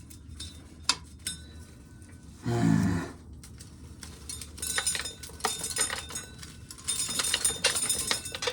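Dried corn kernels being shelled by hand off a broken cob, rattling and clinking as they drop into a container, in a dense run of rapid clicks from about halfway through. About two and a half seconds in there is one brief low vocal sound.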